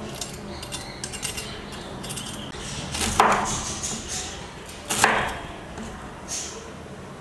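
Kitchen knife cutting through a crispy fried breaded chicken strip: crackling crunches of the crust, then two sharp knocks of the blade striking the marble surface about three and five seconds in, with a fainter knock after six seconds.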